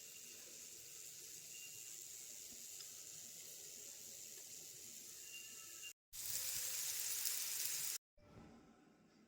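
Taro root pieces sizzling steadily as they fry in hot oil. After a cut about six seconds in, the sizzling is louder for a couple of seconds, then drops to a quieter, fading hiss after another cut near the end.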